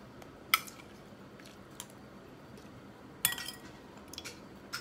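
A metal spoon clinking against a ceramic soup bowl and plate: one sharp clink about half a second in, a quick rattle of clinks a little after three seconds, then a few faint taps near the end.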